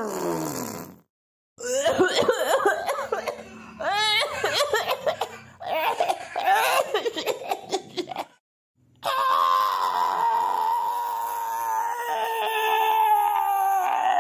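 A falling tone dies away, then a canned laughter sound effect: several bursts of people laughing. After a brief break comes a long, held, voice-like sound that slowly falls in pitch.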